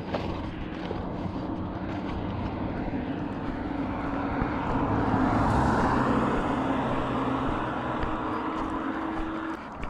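Propeller airplane engine droning overhead, growing louder to about the middle and then fading away.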